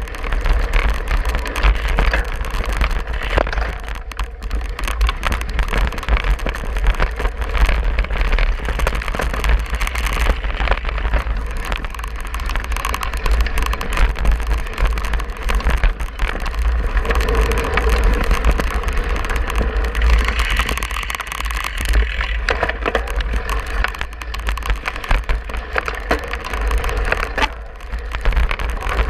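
Wind rumbling on the camera's microphone and a cyclocross bike rattling and clattering as it is ridden fast over bumpy grass, with many small knocks throughout.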